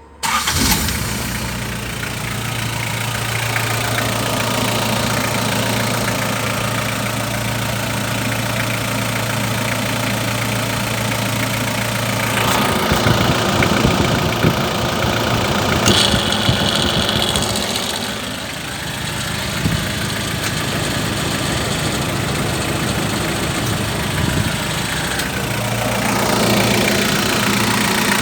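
Isuzu Fargo's 4FG1 four-cylinder engine idling steadily, coming in suddenly right at the start. About halfway through its note gets rougher and a little louder for several seconds, and it shifts again near the end.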